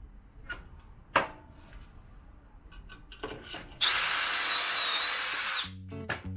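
Clicks and a sharp knock as timber is set into a pocket-hole jig, then a Milwaukee cordless drill runs steadily for about two seconds with a high whine, boring a pocket hole through the Trend jig's drill guide into softwood.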